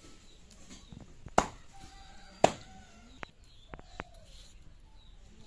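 Sharp knocks and clicks while a tomato is sliced against a boti's fixed curved blade. The two loudest come about one and a half and two and a half seconds in, with a few softer ones after them.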